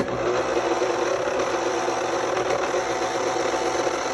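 Blendtec 800 commercial blender, its sound-enclosure cover off, switched on with an empty jar and running at a steady speed: a loud, even motor whir that starts suddenly.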